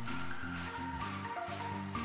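Background music with a steady beat and a melody of short held notes.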